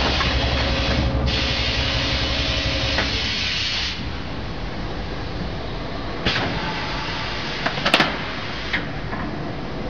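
Vacuum forming machine running with a steady rush of air, which stops about four seconds in and leaves a quieter hum. Near the end come a few sharp clunks and clicks as the formed red plastic sheet in its clamp frame is lifted off the mould.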